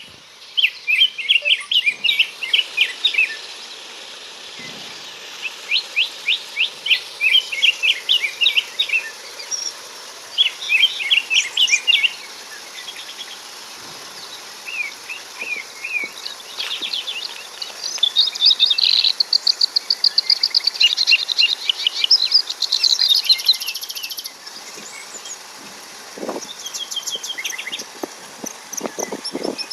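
Birds singing: rapid runs of short, high chirps repeated over and over in bursts, over a faint steady hiss. A few soft knocks near the end.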